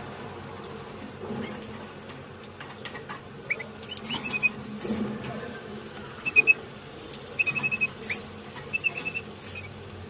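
Canary nestlings begging: short, high peeps, singly and in quick runs of several notes, starting about three seconds in and coming more often toward the end.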